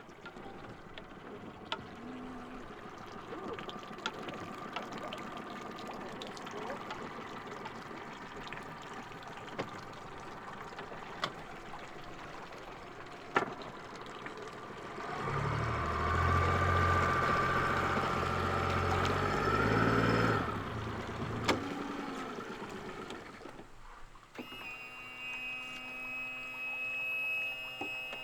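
A motor running, much louder for about six seconds midway, with scattered clicks and knocks throughout; near the end a steady high-pitched hum starts.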